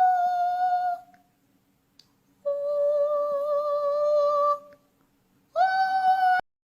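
Three long held humming notes with a slight waver, the middle one lowest and longest. The last one cuts off abruptly.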